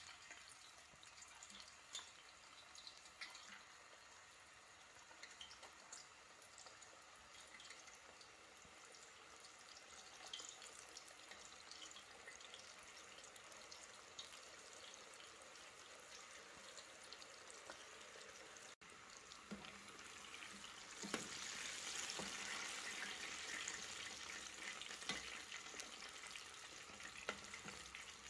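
Frozen cassava chips frying in hot oil in a stainless steel pan: a steady sizzle with small pops and crackles. It is faint at first and grows louder and denser about three-quarters of the way through.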